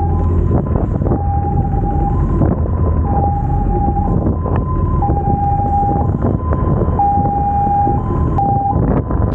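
Emergency-vehicle siren sounding a two-tone hi-lo pattern, each tone held about a second, over the low rumble of motorcycle engines and traffic.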